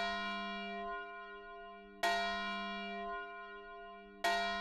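A single church bell tolling, struck at the same pitch about every two seconds. Each stroke rings on and slowly fades: the ringing of one stroke is heard first, then two more strokes follow.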